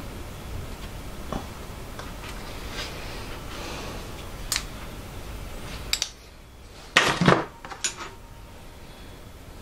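Small metal tools clinking and knocking against the steel parts of a tool and cutter grinder and the workbench as it is adjusted: a few separate sharp clicks, then a louder clatter about seven seconds in. A low background hum drops away about six seconds in.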